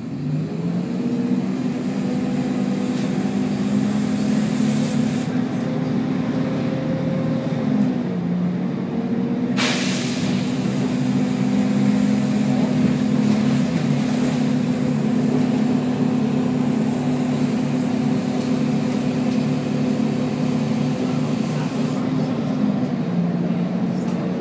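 Volvo B10BLE bus engine and Voith automatic gearbox pulling under load, heard from on board, the engine note shifting in steps a few times. A short, sharp hiss of released air cuts in about ten seconds in.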